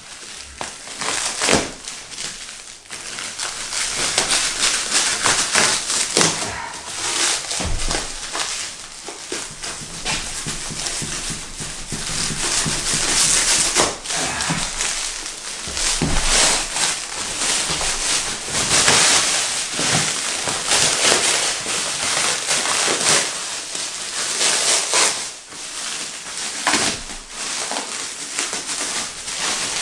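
Thin plastic luggage wrap crinkling, rustling and tearing as it is cut with a knife and pulled off a backpack.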